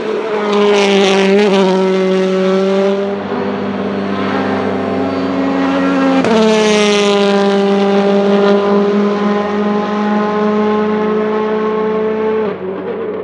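Hyundai i20 WRC rally car's 1.6-litre turbocharged four-cylinder engine running hard at high revs. The note holds a steady pitch, jumps up sharply about six seconds in, then holds again and drops off near the end.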